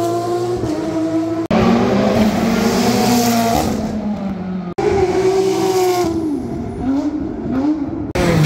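Rally car engines running hard on a street stage, the revs falling and climbing again through gear changes. The sound cuts off abruptly a few times between passes.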